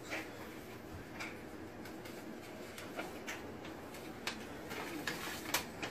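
Envelope and letter paper rustling and crinkling as a letter is pulled out and unfolded: scattered faint crackles, busier near the end.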